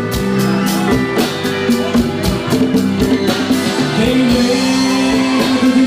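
Live band playing an instrumental passage: a drum kit keeping a steady beat under sustained held chords and bass.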